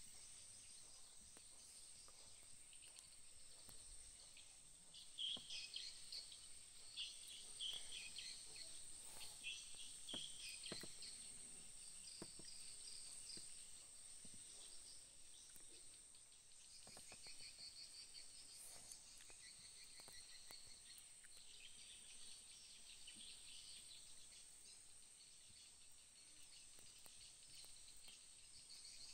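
Faint outdoor ambience of small chirping and trilling animal calls, birds and insects, in clusters about five to twelve seconds in and again after about seventeen seconds, over a steady thin high-pitched tone.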